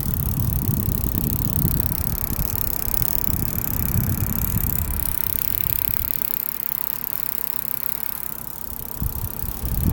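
Computer power supply unit making an abnormal noise: an uneven low rumble with a faint steady hum, the rumble easing a little after about six seconds and rising again near the end.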